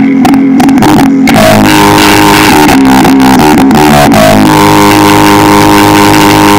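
Loud guitar music played back through computer speakers.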